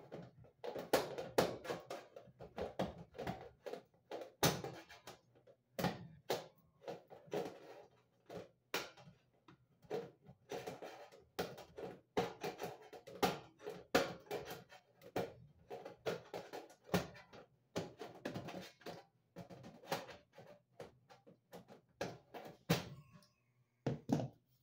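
Irregular clicks, taps and light metallic rattles of hands working a screw and cover on the sheet-metal back of an electric range, over a faint steady low hum.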